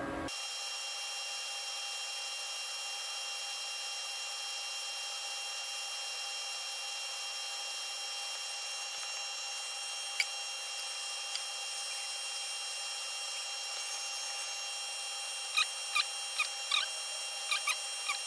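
Metal lathe turning slowly, about 200 RPM, giving a steady whine with several high tones. Near the end, a quick run of short squeaks.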